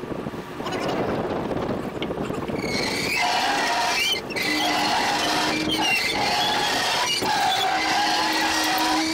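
Hoisting gear on a small trawler, a wire running through an overhead pulley block, lifting the trawl net under load. A high mechanical squeal sets in about three seconds in and holds with brief breaks, over a steady rush of boat engine and water.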